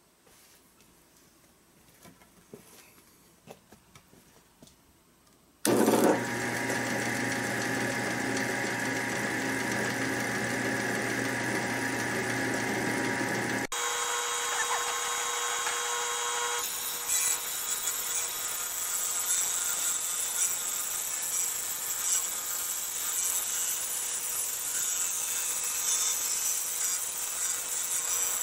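A few seconds of faint handling clicks, then a table saw's electric motor switches on about six seconds in and runs steadily. From a little past the middle, the blade rips a wooden board lengthwise, adding a dense, hissing cutting noise.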